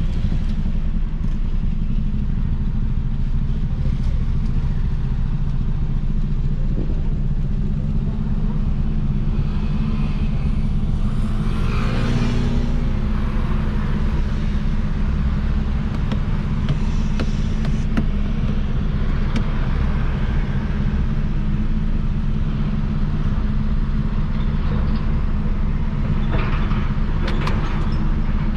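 Peugeot 206 1.4 four-cylinder engine with a straight-through exhaust (just the pipe, no muffler) idling at a steady speed. A brief louder swell of noise comes about twelve seconds in.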